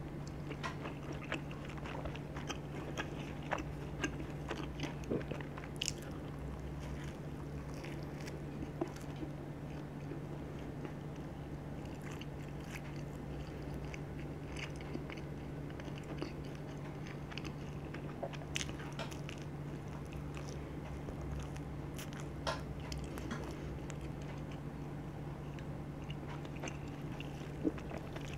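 Close-miked chewing of thick charcoal-dough pizza crust, with many small crunches and wet mouth clicks scattered throughout, over a steady low hum.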